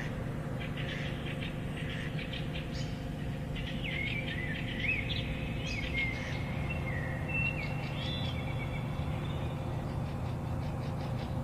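Small birds chirping and singing in woodland: scattered short high chirps, with a few gliding, warbling phrases in the middle. Under them runs a steady low hum.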